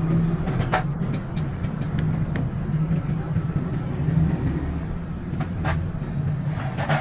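A steady low machine hum, with sharp metallic clicks and taps scattered over it: several in the first two and a half seconds, then two more near the end.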